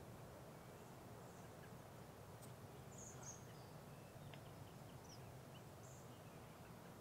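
Near silence: faint outdoor ambience with a few faint, short, high bird chirps near the middle.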